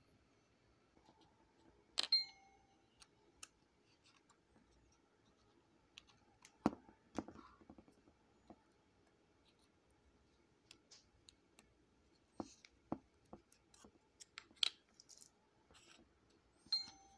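Scattered light clicks and knocks of a brass Omni prop replica being handled as its globe is turned and lifted out of the case. Two sharper metallic clicks, about two seconds in and near the end, each ring briefly.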